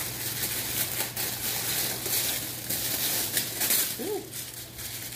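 Tissue paper wrapping rustling and crinkling continuously as hands pull it back and dig through a packed box.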